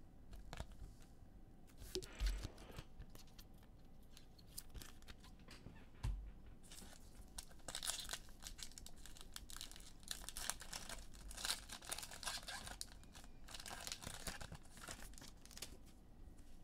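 A trading-card pack's foil wrapper being torn open and crinkled, a dense crackling through most of the second half. Before it come a few light clicks and knocks of cards being handled.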